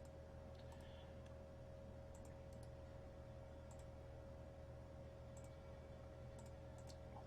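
Near silence with faint computer mouse clicks, scattered and often in quick pairs, over a steady faint electrical hum.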